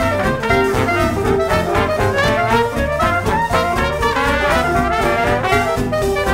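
Background music: an upbeat brass-led jazz tune with a steady beat.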